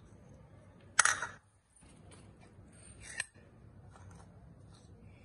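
Porcelain bowls knocking together: one sharp clink about a second in, and a lighter click from a spoon or bowl rim a little after three seconds.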